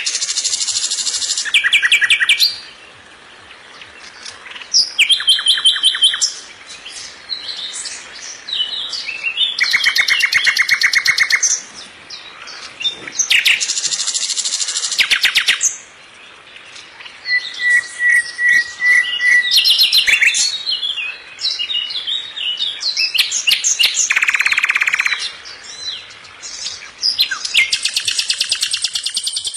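A songbird singing: phrases of rapid trills and chirps, each a second or two long, with short pauses between them.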